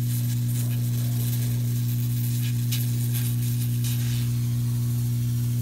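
Hot-air soldering blower running with a steady low hum while heating a microswitch's solder joints on a car door-lock circuit board, with faint scattered crackles of sizzling.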